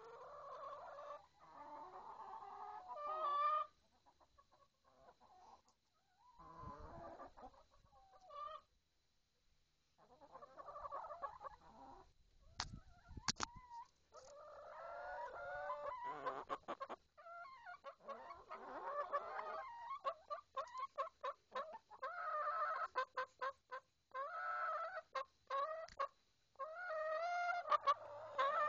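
Backyard hens clucking and calling right at the microphone, in drawn-out calls and quick runs of short clucks. A few sharp knocks sound about halfway through.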